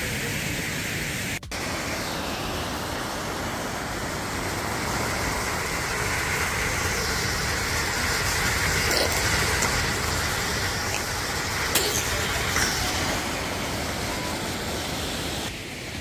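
Steady rushing of a stream cascading over rocks, with a brief break about a second and a half in and a few faint clicks later on.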